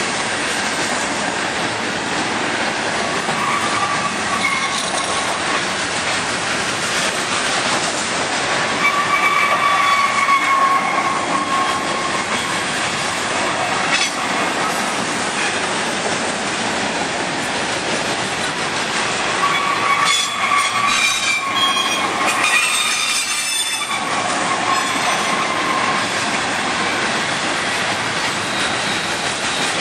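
Norfolk Southern freight train's loaded hopper cars rolling past on the rails, a steady loud rumble of steel wheels. High wheel squeals rise over it several times, longest in the last third.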